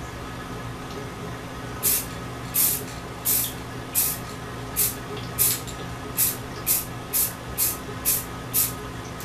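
Aerosol spray paint can sprayed in about a dozen short bursts of hiss, starting about two seconds in and coming roughly one to two a second, a little faster near the end.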